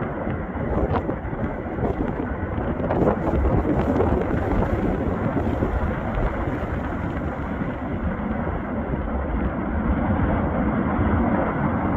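Steady low roar of the Fagradalsfjall volcanic eruption, a continuous rumbling noise with no distinct individual blasts.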